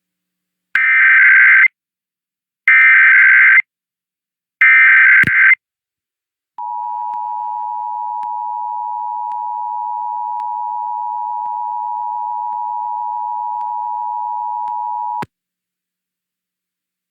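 Emergency Alert System tones: three bursts of about a second each of SAME digital header data, then the two-tone EAS attention signal (853 and 960 Hz together) held steady for about eight and a half seconds before cutting off sharply. This header-and-attention-tone sequence is the alert for a Required Monthly Test.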